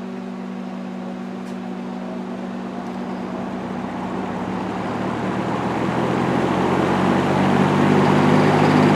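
Large 1950s electric window fan started on high, its motor humming as the blades spin up and the rush of air grows steadily louder. At speed it runs with some vibration and bearing noise, which the owner hopes is mostly worn thrust washers.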